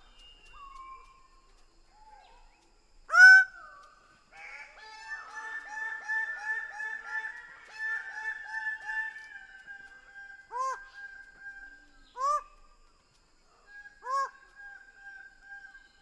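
Greater bird-of-paradise calling: loud, harsh honking calls, one very loud call about three seconds in, then a fast run of repeated calls at about two a second for several seconds, then three single calls about two seconds apart.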